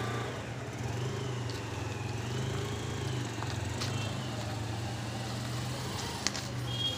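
A motor vehicle's engine running steadily as a low hum, cutting off right at the end, with a few light clicks near the end.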